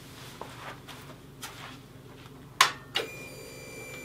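Motorcycle switched on: a sharp click, a second click, then a steady electric whine lasting about two seconds, the Harley-Davidson touring bike's fuel pump priming at key-on. A few faint footsteps and shuffles come before.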